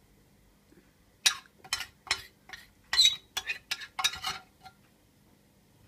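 Metal spoon scraping and clinking against a baking dish while scooping up barbecue sauce: a quick, uneven run of sharp strokes from about a second in until past four seconds.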